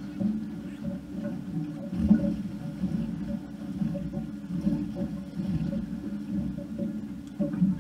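Boat engine running at low revs, a steady low hum that swells and fades slightly.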